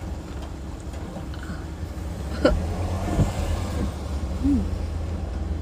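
Steady low rumble of a car cabin, with a sharp click about halfway through and a short hummed sound from someone tasting cake near the end.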